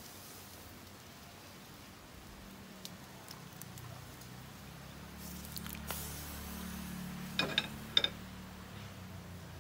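A pot simmering on the stove with a faint low hum, then a metal utensil clinking against the pot three times in quick succession near the end, each clink ringing briefly.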